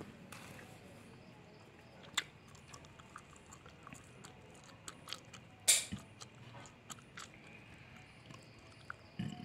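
A few scattered sharp clicks and taps over quiet room noise, the loudest about halfway through.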